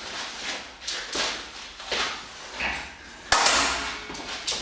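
Metal clicks and clanks of an EZ curl bar being clipped onto the two low cable pulleys of a Finnlo Maximum FT1 cable station, with one louder clank about three seconds in.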